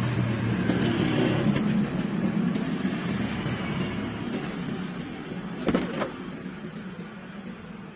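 A motor vehicle's engine running, steady and fading gradually, with one sharp knock about six seconds in.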